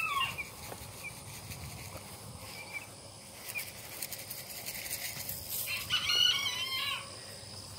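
A rooster crows once, about six seconds in.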